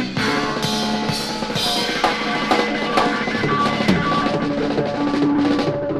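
Instrumental passage of a rock song with no singing. A full drum kit, with bass drum and snare, plays a steady beat over sustained bass and chord notes.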